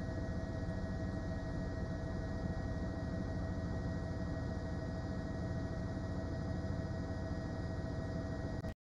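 Steady hum with a few held tones over a low rumble, cutting off suddenly near the end.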